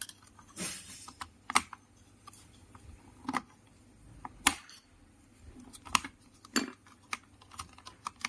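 Irregular small plastic clicks and taps from a BMW X5/X6/X7 (G05/G06/G07) centre air vent assembly being worked by hand with a thin pin and a small screwdriver, a few clicks sharper and louder than the rest.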